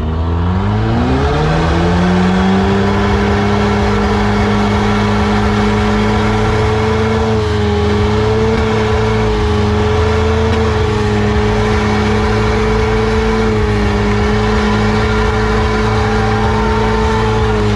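Car engine revving up over the first second or two, then held at steady high revs for a sustained burnout.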